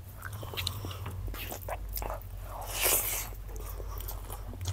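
Close-miked chewing and biting of food, with small wet mouth clicks and a louder crunchy burst about three seconds in.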